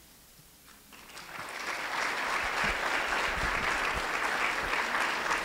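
Audience applauding, starting about a second in and building quickly to a steady level.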